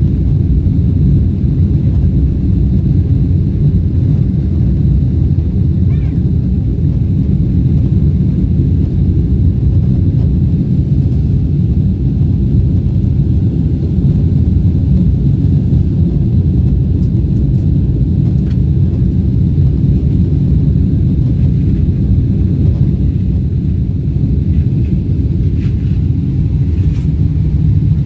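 Boeing 777-300 twin jet engines at climb power, heard inside the passenger cabin during climb-out just after takeoff: a loud, steady low rumble.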